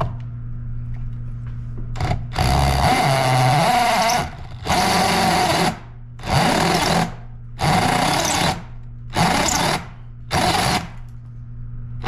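Cordless drill with a steel step bit cutting a hole through a stainless steel wall plate, in six bursts with short pauses between. The first burst, about two seconds in, is the longest, and the later ones are shorter.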